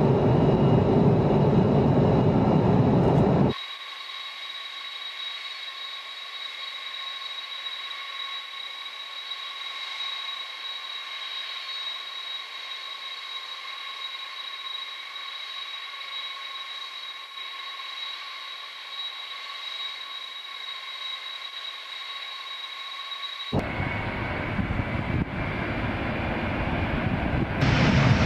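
KC-10 Extender tankers' General Electric CF6 turbofan engines. The roar of engines at takeoff power cuts off about three seconds in, giving way to a steady high-pitched whine of jets idling, and the roar of engines at power comes back and grows louder over the last few seconds.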